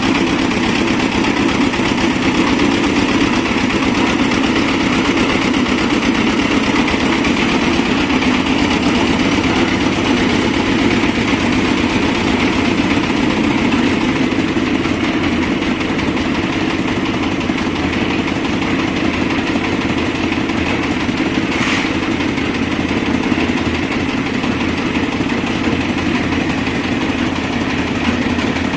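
Small stationary diesel engine driving a concrete hoist winch, running steadily.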